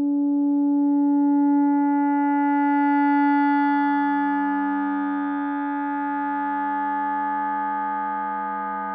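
Electroacoustic music made from audio feedback: sustained, steady pure tones. A strong low hum holds while a dense cluster of higher tones gradually fills in above it. In the second half a lower tone grows louder as the first one fades.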